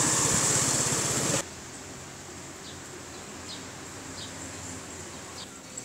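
A vehicle engine running close by in street traffic, loud and steady, cutting off abruptly about a second and a half in. After that, quieter outdoor ambience with a few short, high bird chirps.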